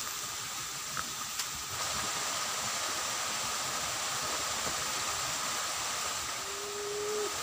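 Steady hissing outdoor ambience with a faint, even high drone, two small clicks about a second in, and a short, slightly falling whistle near the end.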